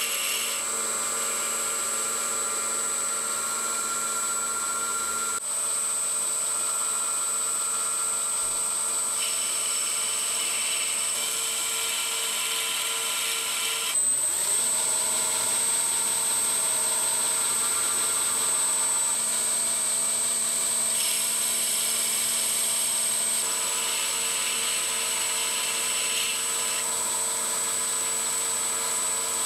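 Schaublin 102 lathe running with a steady high whine while a high-speed steel boring bar cuts the bore of a brass clock mainspring barrel cap to take a bushing. The sound changes abruptly about halfway through, with a brief rising whine.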